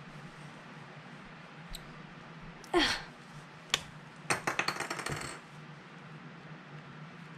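A short squeak, then a sharp click and a quick rattle of small hard plastic on a stone countertop as a felt-tip marker is picked up, its cap pulled off and set down.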